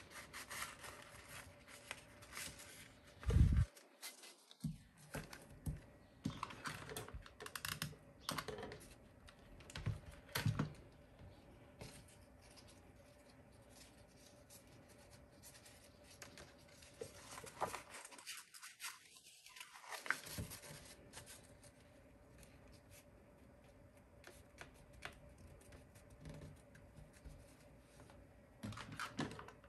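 Paper and satin ribbon being handled on a cutting mat: scattered light taps, rustles and scratches, with one louder low thump about three and a half seconds in.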